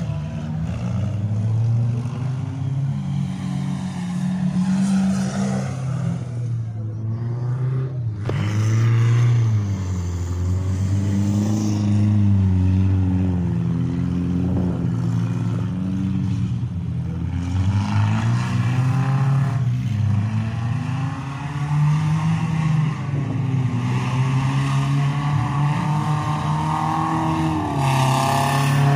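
Engines of several demolition derby cars running and revving, their pitch rising and falling again and again as the throttle opens and closes.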